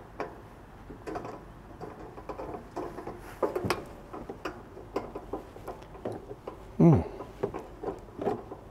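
Small metal clicks, taps and scrapes of a gas regulator being fitted and screwed into the side inlet of a portable gas barbecue, a finicky fit. About seven seconds in, a brief louder sound falls steeply in pitch.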